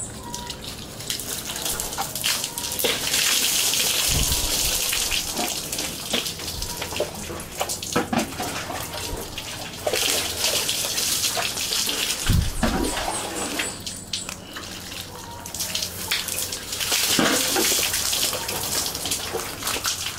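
Water pouring and splashing over a person taking an outdoor shower, coming in surges about three times.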